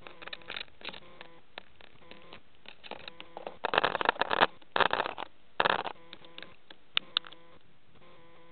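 A pet parrot handling a small camera: irregular clicks and taps of beak and feet on the camera body, with three loud rustling scrapes between about four and six seconds in as the bird brushes right against the microphone.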